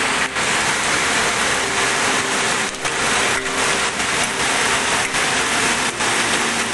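Heavy hailstorm: hailstones and rain pelting down in a dense, steady hiss.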